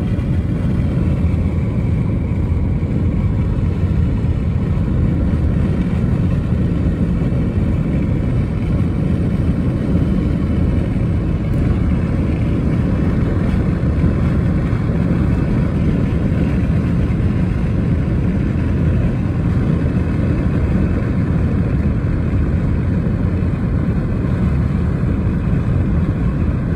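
Car driving at highway speed, heard from inside the cabin as a steady low rumble of tyre and road noise.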